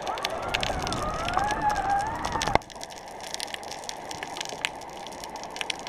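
Underwater sound picked up by a GoPro in its waterproof housing: a wavering whine glides up and down and then cuts off abruptly about two and a half seconds in. Scattered sharp clicks and crackle run throughout.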